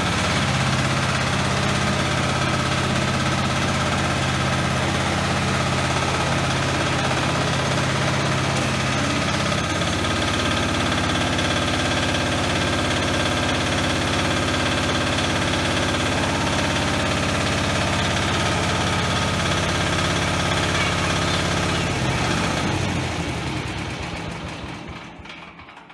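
The engine of a 4LZ-1.0 mini crawler combine harvester idles steadily. Near the end it is switched off and winds down.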